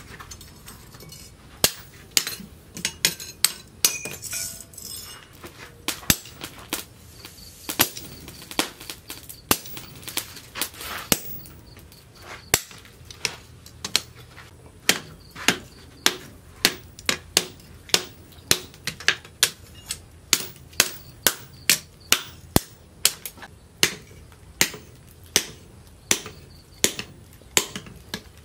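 Hand hammer striking a red-hot steel sprocket on a steel block anvil, hand-forging it into a machete blade: sharp metallic blows, irregular at first, then a steady beat of about one to two strikes a second.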